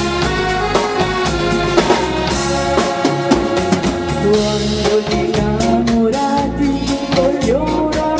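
Live band playing: keyboards and a drum kit keeping a steady beat, with a singer's voice carrying the melody through a microphone and PA.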